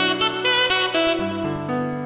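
Background music: a melody of short notes over held bass notes, the bass stepping down a little past halfway.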